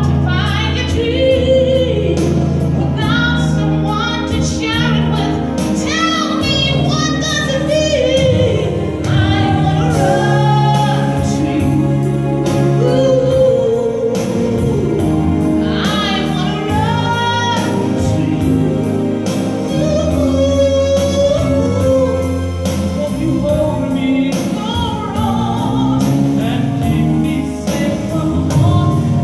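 A woman singing a song into a handheld microphone over instrumental accompaniment, her voice gliding and holding notes above steady low backing chords and a light beat.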